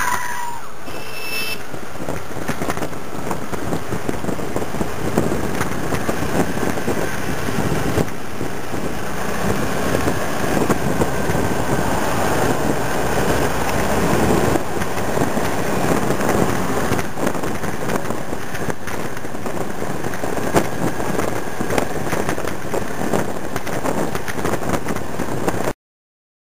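Riding a scooter at speed: steady wind rush over the microphone mixed with the scooter's engine running. It cuts off abruptly near the end.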